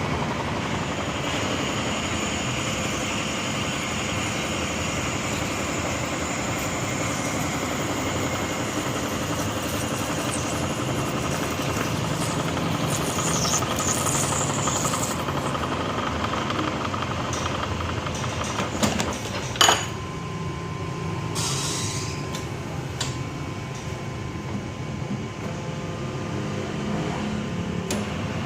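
Automatic cutting machine running steadily in a workshop, with brief high hisses and one sharp clack about two-thirds of the way through.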